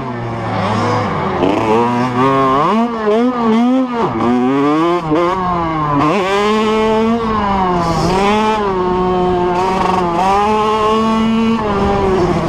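85cc two-stroke motocross bike engine, ridden hard round a dirt track: the revs climb and drop repeatedly through the first half as the rider works the throttle and gears, then hold steadier with small swells.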